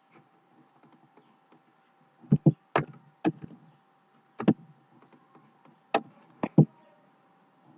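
Computer keyboard keys and mouse buttons clicking: about eight sharp taps in uneven groups as number values are typed into a field, over a faint steady hum.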